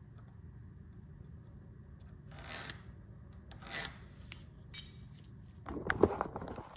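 Pencil scratching a line across a pressure-treated 2x4 along a metal speed square, in two short strokes about two and a half and three and a half seconds in. Near the end comes a louder rustle and knock as the tools and board are handled.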